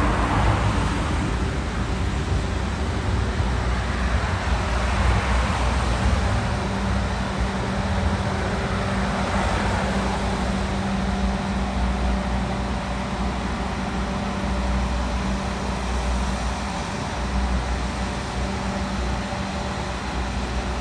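A steady engine hum over a continuous rumbling, rushing noise; the rushing swells over the first half, then eases off.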